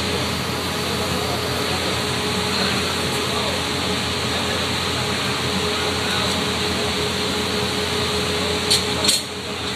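Steady rushing roar of a glass-blowing workshop's furnace and its blowers, with a faint steady hum in it. A couple of sharp knocks come near the end, just before the roar briefly drops.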